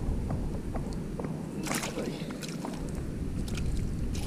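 Shallow lake water sloshing and splashing in short bursts as a hand moves a black bass about in it at the shoreline, over a steady low rumble.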